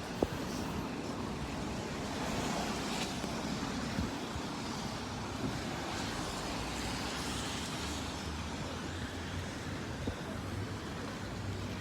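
Steady city traffic noise with a few faint knocks.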